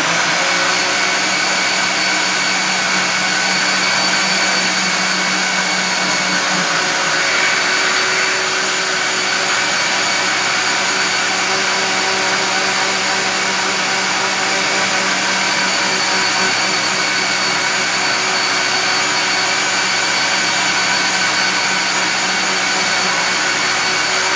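Countertop electric blender switched on and running steadily, whirring as it mixes a thin liquid batter.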